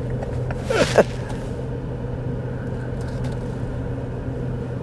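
A vehicle engine running at a steady low speed, a constant hum with a steady low drone. A short voice-like sound with falling pitch comes just under a second in.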